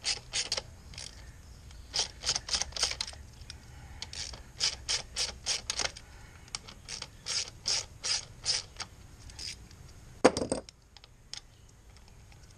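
Socket ratchet wrench clicking in short runs of rapid clicks as the 8 mm bolts of the plastic rear brake caliper guard are backed out. One louder knock comes about ten seconds in.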